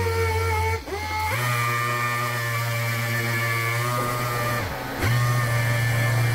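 Random orbital sander running on a painted car panel, sanding the clear coat with fine-grit paper: a steady whine whose pitch shifts in steps, briefly dropping and swinging back up about a second in and again near five seconds.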